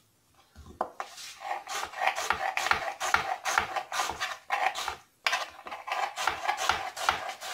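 Kitchen knife slicing a red onion on a wooden board: quick rasping cuts, several a second, each ending in a light tap on the wood, with a brief pause about five seconds in.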